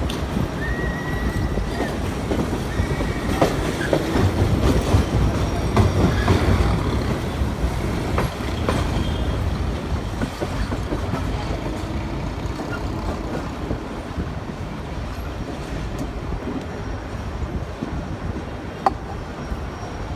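Pakistan Railways express train running past on the rails: a steady heavy rumble and rattle of the coaches, loudest about five seconds in and easing off toward the end. A short high squeal comes near the start, and a few sharp clacks sound along the way.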